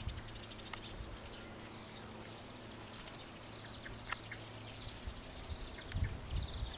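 Faint outdoor ambience: a low steady hum with scattered short high chirps and ticks, and a fast high trill near the end.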